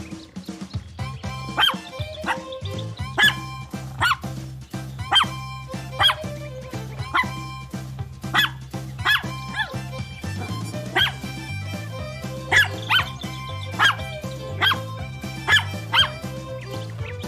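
Puppy barking in short, high yaps, about one a second, over background music with a steady bass line.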